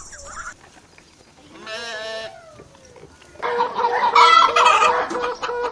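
Rooster crowing: a fainter call with a falling tail about two seconds in, then a loud, long crow from about three and a half seconds on.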